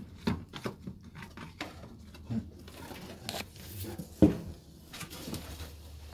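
Irregular clicks, scrapes and knocks of clay and plastic plant pots and floor clutter being shifted and poked, with one sharp knock about four seconds in.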